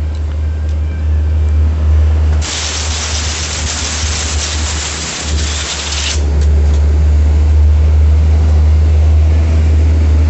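Compressed-air blow gun blasting a hiss for about four seconds, starting a couple of seconds in, over a steady low hum.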